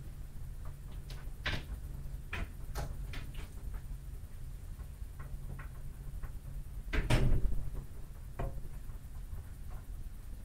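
Classroom room noise over a steady low hum: scattered small clicks and taps as students write and shift at their desks, with one louder knock about seven seconds in.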